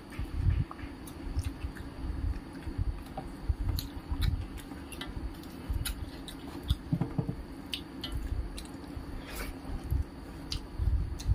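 Close-miked eating by hand: fingers squishing rice mixed with dal on a steel plate, and chewing with many small wet clicks and low thumps, over a steady low hum.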